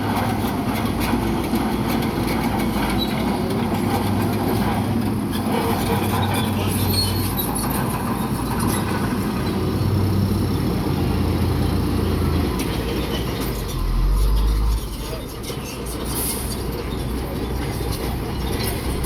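Bulldozer's diesel engine running under load, with the steady grinding and clanking of its steel tracks and pushed rock. The engine swells briefly about fourteen seconds in, then eases.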